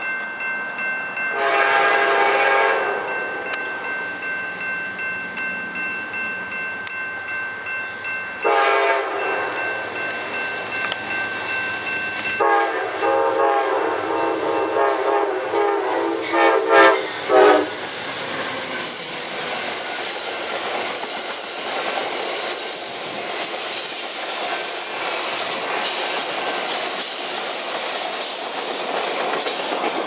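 Amtrak P42DC diesel locomotive's air horn sounding a horn show: a blast about a second in, another around eight seconds, then a long wavering blast from about twelve to seventeen seconds. After that the passing passenger train's locomotives and cars rumble and clack over the rails. A grade-crossing warning bell rings steadily under the first part.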